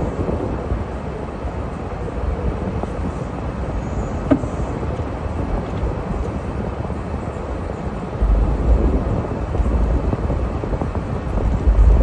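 A car driving on a snowy road, with steady engine and road noise. There is a brief click about four seconds in, and the low rumble gets heavier from about eight seconds in.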